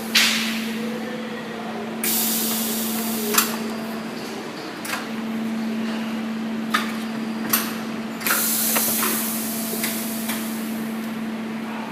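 Sliding-table high-frequency PVC welding machine working through its cycle: a steady electrical hum, sharp clunks of the press and table, and several loud hisses of pneumatic air, each lasting a second or two.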